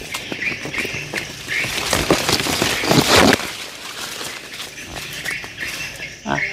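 Outdoor ambience of birds chirping and insects droning, with rustling and scraping noises that are loudest between about two and three and a half seconds in.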